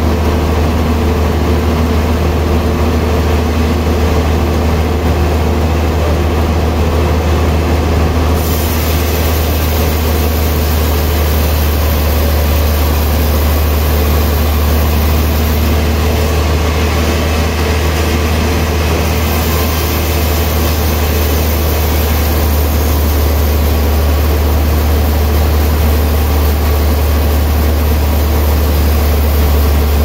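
Large log band sawmill running, a loud steady machine noise with a deep hum underneath. About eight seconds in, a hissier, higher sound joins it and continues.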